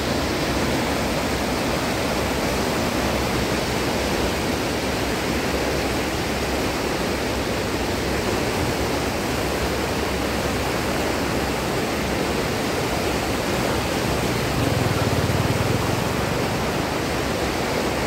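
A river in full flood, its muddy water churning and rushing past in a steady, loud rush of turbulent water.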